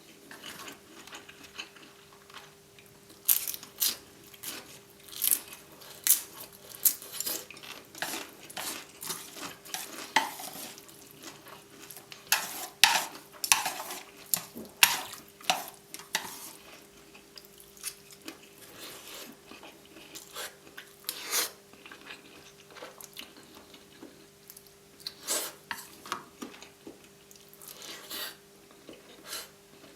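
Cutlery clinking and scraping against a plate of crispy fried noodles in short, irregular strikes while eating, over a faint steady hum.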